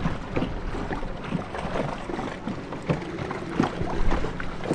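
A small boat moving through harbour water: irregular splashing and slapping of water against the hull over a low steady hum.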